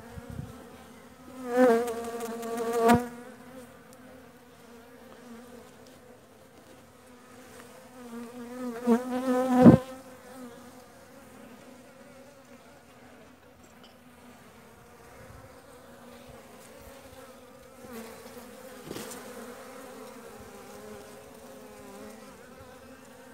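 Honeybees buzzing around an open hive, a steady low hum, with single bees passing close by in loud, wavering buzzes twice in the first ten seconds and once more, fainter, later on.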